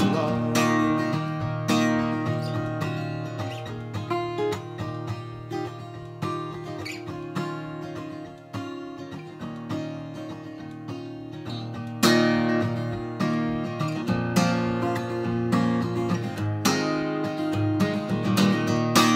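Acoustic guitar played solo with no singing: plucked notes that grow quieter toward the middle, then louder strummed chords from about two thirds of the way through.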